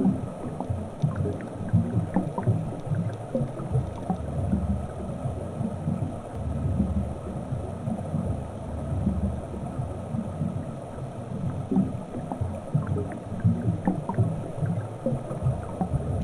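Underwater ambience picked up by a submerged camera: a low, uneven rumble of moving water with scattered faint clicks.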